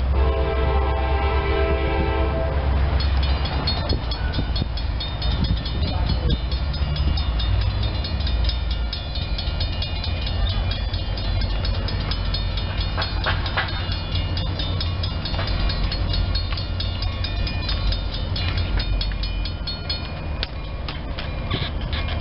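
Approaching CSX diesel freight locomotive sounding one long horn blast of about three seconds over the low rumble of its engines. A rapid, repeating high-pitched ringing then sets in and carries on until near the end.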